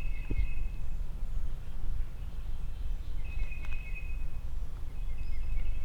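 A songbird whistling three sustained notes, each about a second long, over a steady low rumble like wind on the microphone.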